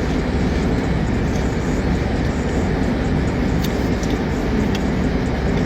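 Steady low rumble and hiss of a running vehicle, with a few faint clicks.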